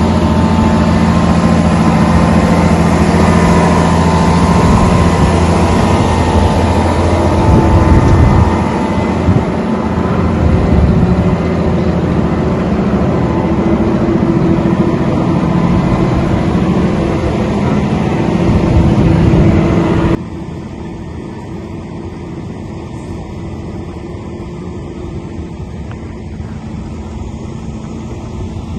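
Diesel engine of a 2005 Wirtgen W1200F cold planer running steadily with a low hum. About two-thirds of the way through, the sound drops suddenly to a quieter running.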